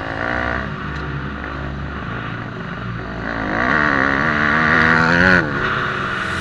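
Yamaha enduro motorcycle engine under throttle on a dirt trail, its revs rising and falling; from about three seconds in the revs climb for some two seconds, then drop sharply as the throttle is shut near the end.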